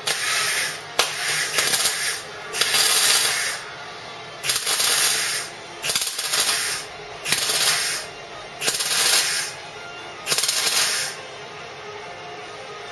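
MIG welder stitch-welding a butt seam on a car's steel bulkhead: about nine short bursts of crackling arc, each around a second long, with brief pauses between them.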